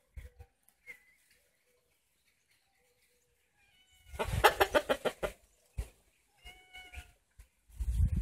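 Cockerel calling: a loud burst of rapid pulsed notes about four seconds in, then a short high-pitched call about two seconds later.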